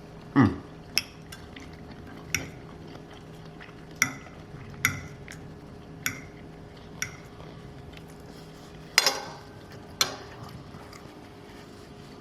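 Cutlery clicking and scraping against a dish as food is picked up: about ten separate sharp clicks spread out, the loudest shortly after the start and about nine seconds in, over a faint steady hum.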